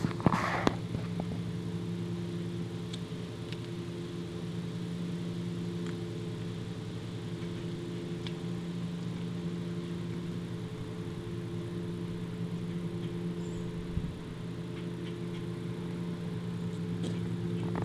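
A husky chewing and tearing at a raw whole chicken, with a burst of sharp crunching cracks at the start, a few scattered cracks in the middle and more near the end. Under it runs a steady low mechanical hum, like an idling engine.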